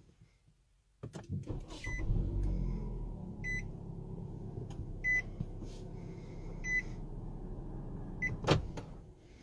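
2016 Nissan Rogue's 2.5-litre four-cylinder engine started by push-button: it cranks and catches about a second in, flares up, then settles to a steady idle, showing the car accepts the programmed key. A short cabin warning chime beeps about every second and a half, and a single sharp knock comes near the end.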